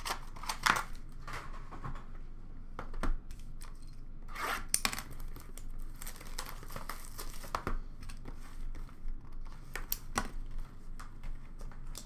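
Packaging on a trading-card box tearing and crinkling as it is unwrapped and opened by hand, in irregular rasps with a few louder rips and small clicks of handling.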